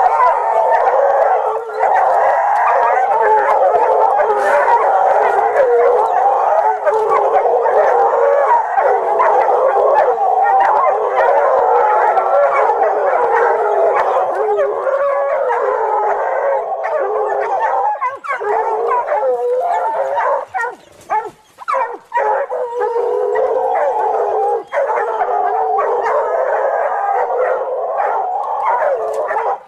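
Hound baying and howling almost without pause at a leopard it has cornered, breaking off briefly a few times past the middle.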